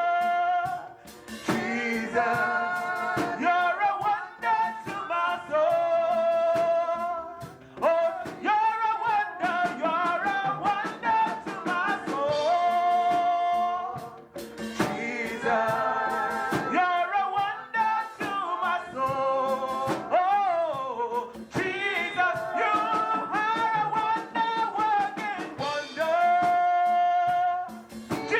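Gospel worship song sung with long held notes over a band accompaniment, with steady drum hits throughout.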